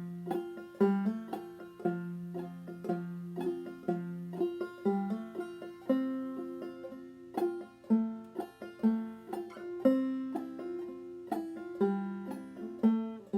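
Solo clawhammer banjo in fDGCD tuning playing a simple old-time melody in F, with plucked notes struck in a steady bum-diddy rhythm over ringing strings.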